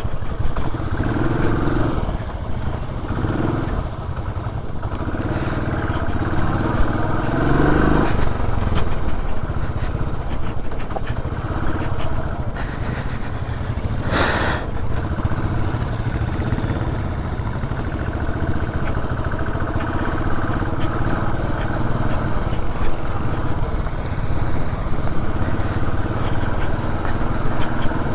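Benelli TRK 502 parallel-twin motorcycle engine running steadily on an off-road ride, with a brief hissing burst about 14 seconds in.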